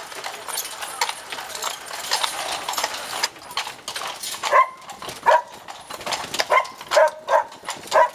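Horses' hooves clip-clopping on cobblestones as a carriage pulls them along, a fast run of clicks. About three seconds in this gives way to a series of short, loud, pitched calls.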